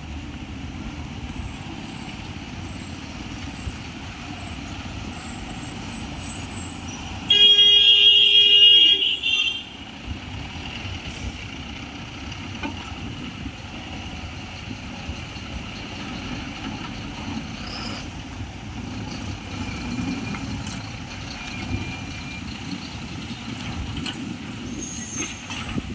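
Vehicle engines and tyre noise as cars, a loaded pickup and a multi-axle lorry drive slowly round a hairpin bend. A loud, steady horn blast sounds about seven seconds in and lasts about two seconds.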